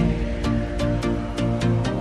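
Electronic background music with a steady, quick beat and sustained synth notes.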